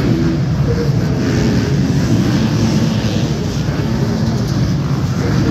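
Many off-road racing dirt bike engines running and revving together at the start line: a loud, dense, unbroken engine noise with pitches that rise and fall.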